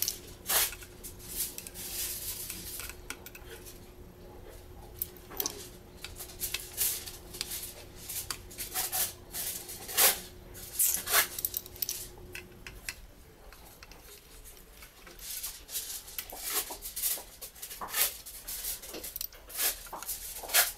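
Small metal tools (a screwdriver and a thin probe) clicking and tapping irregularly against the metal parts of a partly disassembled Canon EOS 60D camera body. A faint steady hum stops about two-thirds of the way through.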